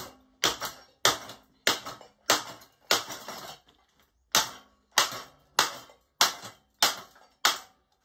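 Hammer blows on the metal blades of a ceiling fan lying on a concrete floor: about a dozen sharp strikes at roughly two a second, with a brief pause about halfway.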